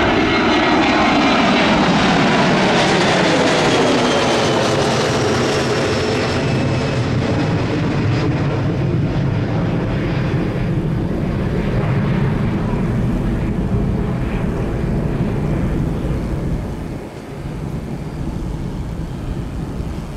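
Jet airliner passing close by, loud, its engine whine sliding down in pitch as it moves away, leaving a steady low rumble that eases off near the end.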